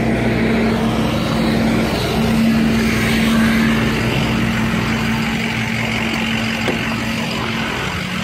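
A vehicle engine idling close by, a steady low hum that holds an even pitch throughout.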